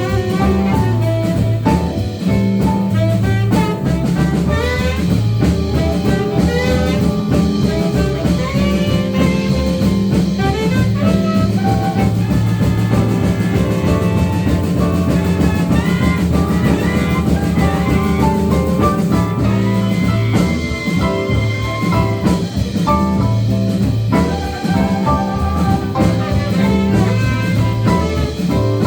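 Live jazz band playing an instrumental break of a soul-blues song: a horn solo over bass and drum kit.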